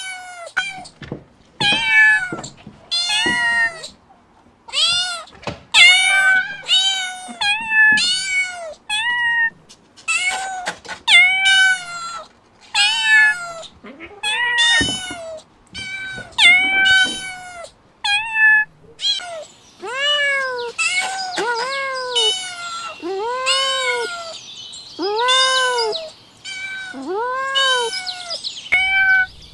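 Kittens mewing over and over, short high calls that rise and fall, about one a second. In the second half the calls come lower and longer, over a faint hiss.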